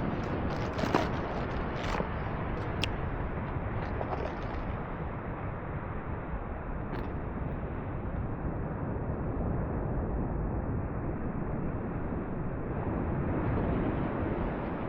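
Steady wind and surf rush on an open beach, with a few sharp clicks in the first three seconds.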